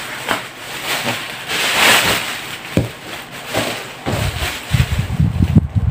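Plastic parcel wrapping crinkling and crackling as it is cut with scissors and then pulled open by hand, with dull low thumps from handling the package from about four seconds in.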